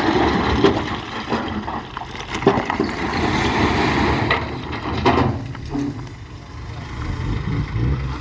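Heavy earthmoving machinery running with a low engine rumble, broken by scattered knocks and rattles, a few of them sharp; it eases off a little about three quarters of the way through.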